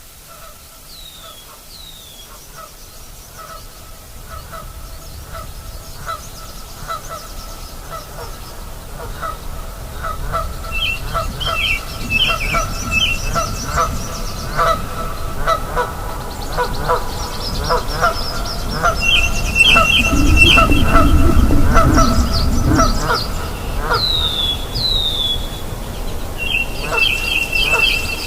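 A chorus of nyamang giving quick repeated honking calls, growing steadily louder, answered by river birds with chattering trills and short falling whistles. About two-thirds of the way through, a deep low rumble swells up for a few seconds under the calls.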